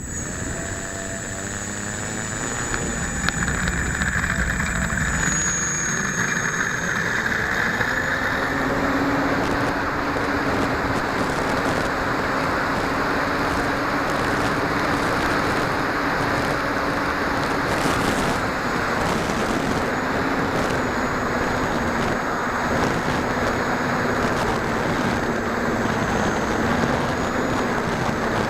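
RC model aircraft's motor and propeller powering up, the pitch rising over the first several seconds, then running at a steady drone under a heavy rush of wind noise.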